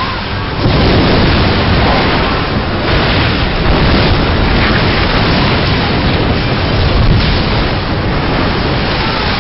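Film sound design of a tsunami wave surging ashore: a loud, continuous rush of crashing, churning water and debris that swells up about half a second in.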